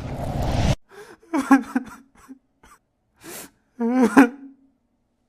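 A swell of noise rising in level and cutting off abruptly, then a few short vocal sounds with wavering pitch.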